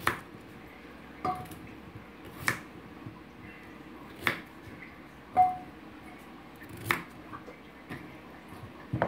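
Knife cutting raw potato into chunks by hand, with a sharp knock every second or two as pieces and the knife hit the wooden board and a metal bowl; a couple of the knocks ring briefly, and the loudest comes about five and a half seconds in.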